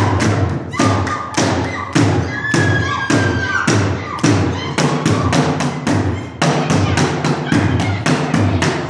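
Drums beating a fast rhythm of sharp strokes, about four a second, with brief high whistle-like calls over the beat in the first few seconds.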